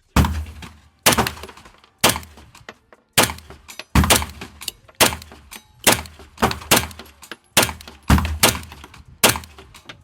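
A string of about seventeen unsuppressed 9mm gunshots with 115-grain ammunition, each a sharp crack with a short echoing tail. They come about one to two a second and fire faster in the second half.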